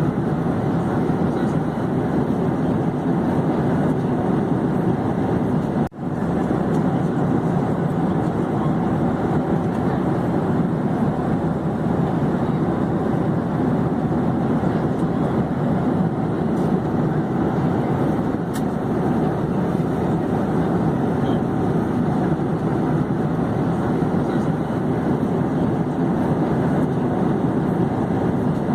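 Airplane in flight: a steady, even drone of engine and rushing air noise that dips out for an instant about six seconds in.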